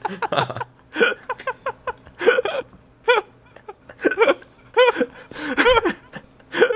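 Helpless laughter from podcast hosts, coming in short, gasping, hiccup-like bursts about once a second.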